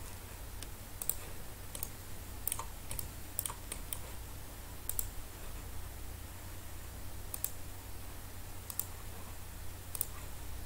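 Computer mouse clicks, about ten scattered single clicks, over a steady low hum.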